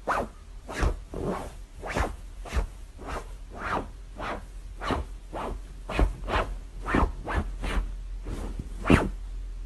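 A steady series of short swishing strokes, about two a second, each briefly rising and falling.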